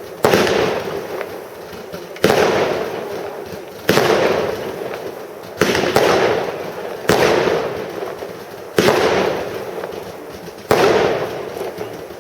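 A fireworks battery firing heavy shots one at a time. There are seven loud bangs at an even pace of about one every one and a half to two seconds, and each bang trails off in a rumbling echo.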